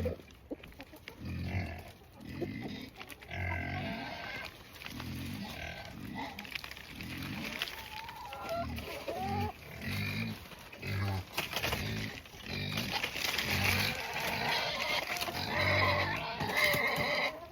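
Pigs grunting: repeated short, low grunts, about one a second.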